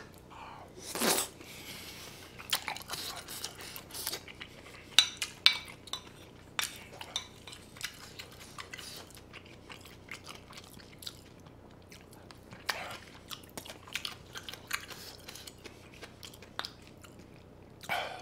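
Close-miked chewing and biting of kimchi and bulgogi fried rice, with sharp clicks of chopsticks against the pan. A short rushing noise comes about a second in.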